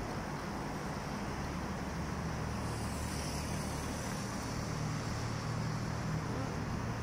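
Steady road traffic noise: a low, even rumble with no distinct events.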